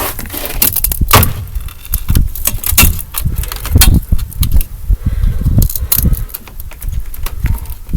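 Irregular sharp clicks and knocks, several of them loud, over a continuous low rumble.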